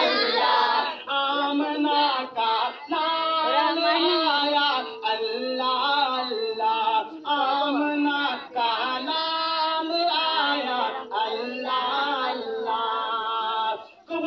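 A man singing a naat solo into a microphone, in melodic phrases broken by short pauses.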